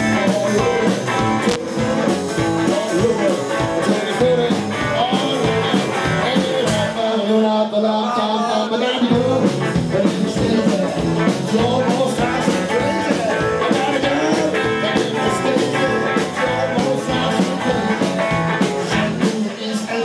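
Live band playing bluesy rock and roll: electric guitar and drums, with a man singing into a microphone.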